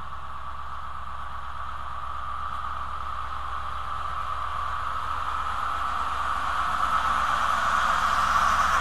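Diesel power car of an InterCity 125 High Speed Train (HST 43036) departing and drawing alongside, its engine sound steady and growing steadily louder as it closes in.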